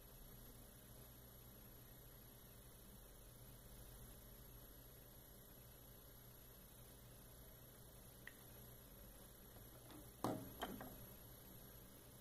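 Near silence: a steady low electrical hum with a faint high-pitched whine, broken by a faint tick about eight seconds in and two short knocks just after ten seconds.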